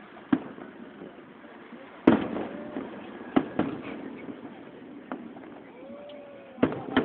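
Fireworks exploding: a string of sharp bangs, the loudest about two seconds in and two close together near the end.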